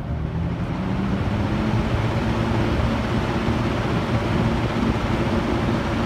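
Mid-1970s EXL seven-bladed box fan, its freshly cleaned and oiled motor, being switched up to high speed. The motor hum rises in pitch and the rush of air grows louder over the first couple of seconds, then both hold steady.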